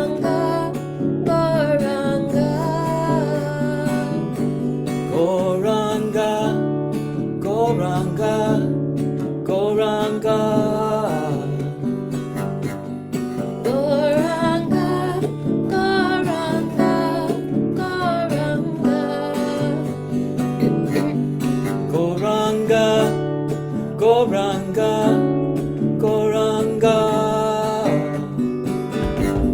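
Kirtan devotional music: a voice sings a gliding, bending melody over a steady sustained drone, with plucked strings.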